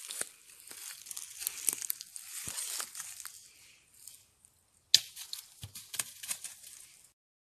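Dry leaf litter on a forest floor crackling and rustling, with scattered sharp snaps. It drops almost to nothing about four seconds in, then a loud crackle near five seconds starts another spell of crackling.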